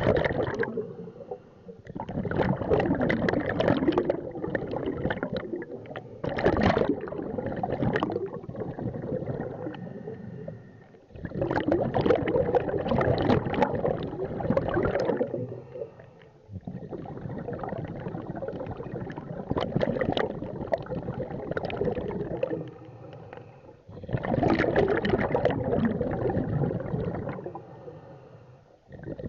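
Scuba diver breathing through a regulator underwater: long rushing, gurgling bursts of exhaled bubbles, several in a row, separated by short quieter pauses between breaths.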